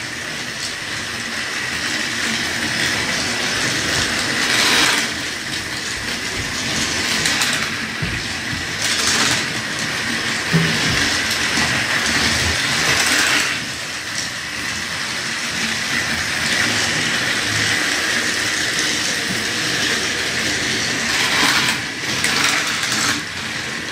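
Battery-powered TrackMaster toy trains running on plastic track: a steady whirr of small electric motors and wheels rattling on the track, swelling louder several times as engines pass close by.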